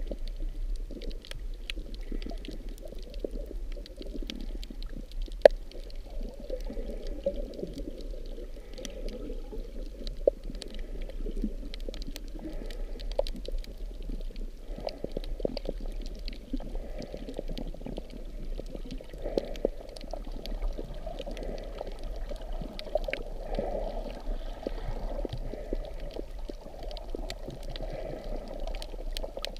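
Underwater water noise: a steady, muffled low rush of moving water, dotted with scattered sharp clicks.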